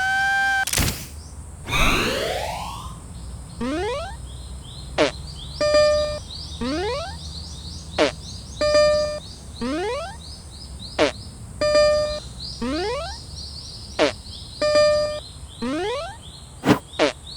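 Cartoon sound effects for animated marching railroad crossings. A cycle repeats about every three seconds: a sharp click, a quick rising squeaky glide, and a short ringing bell tone. Under it runs a steady outdoor background hiss with high chirps.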